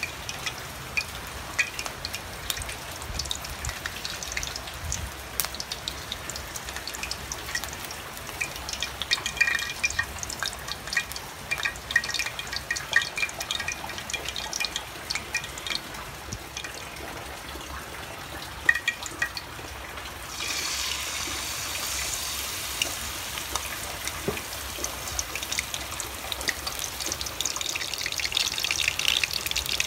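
Battered banana-flower pieces deep-frying in hot oil: a steady crackling sizzle with scattered pops, which turns suddenly louder and denser about twenty seconds in.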